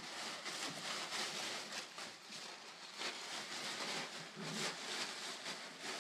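Brown packing paper crinkling and rustling in uneven bursts as two dogs rummage and tear through it.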